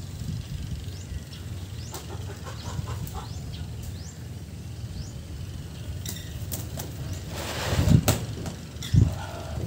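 Faint short bird chirps over a steady low background rumble. Near the end comes a louder rustle and then a sharp knock as a plastic cooler box is handled.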